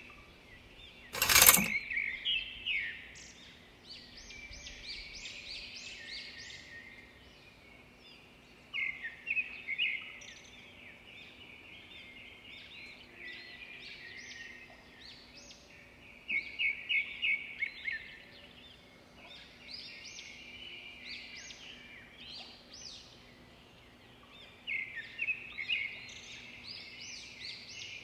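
A small bird chirping in quick runs of short high notes, with pauses between the runs. A sharp click about a second and a half in is the loudest sound, over a faint steady hum.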